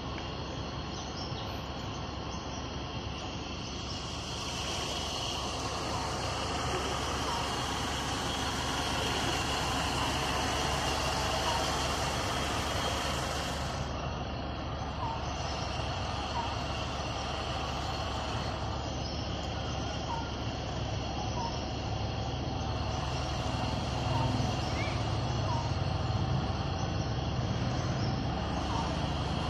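A boat's motor running steadily under way over floodwater, with an even rushing hiss of water and air. The rushing gets louder about four seconds in and eases about fourteen seconds in.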